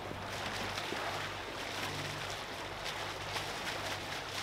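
Water rushing and splashing along a catamaran's bow as it moves through the sea, with brief splashes and a steady low hum underneath.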